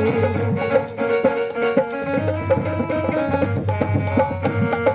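Instrumental break in an Urdu devotional song, with drum strokes played in a quick rhythm under sustained melodic tones.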